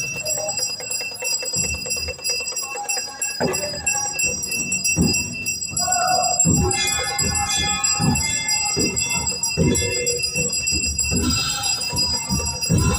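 Temple bells ringing continuously for an aarti: a quick, uneven run of metallic strokes over high, sustained ringing tones.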